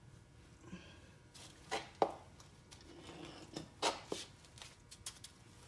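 A few light metallic clicks and knocks, unevenly spaced, as a 14 mm socket and caliper bolt are handled while the rear brake caliper is bolted back on.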